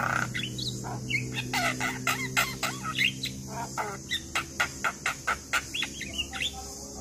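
Javan myna (jalak kebo) singing loudly: a rapid jumble of harsh, chattering notes, turning about four seconds in into a run of short sharp calls about four a second.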